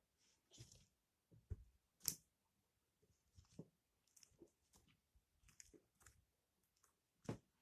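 Pink handgum slime being pressed and pulled by hand: faint, irregular sticky clicks and squishes, with a sharper snap about two seconds in and another near the end.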